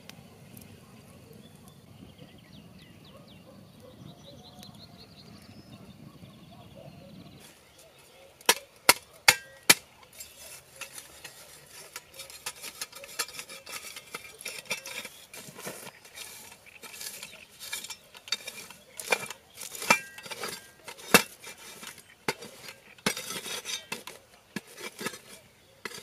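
Small folding shovel scraping and chopping into the ashes and soil of a burnt-out fire pit, burying the campfire's remains. It begins about eight seconds in with a few sharp metal strikes, the loudest sounds, then goes on with a long run of gritty scrapes and knocks. Before that, birds chirp faintly over a soft low background.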